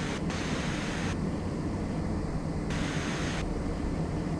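Steady cockpit noise of a Gulfstream business jet climbing: a constant rush of airflow over a low, even engine hum.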